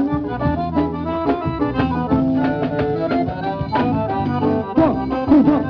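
Forró music, accordion-led over bass and drums, playing loud through a car's speaker wall.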